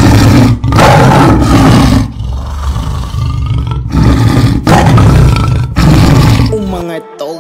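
Loud roaring rush of flames in surges about a second long, with short breaks between them, giving way to music near the end.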